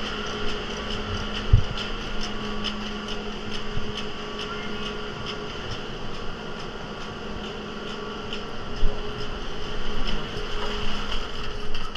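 Terminal machinery of a 1982 Stadeli fixed-grip double chairlift running with a steady mechanical hum and a regular clicking, as chairs come around at the loading station. Two dull thumps, one about a second and a half in and a louder one near nine seconds.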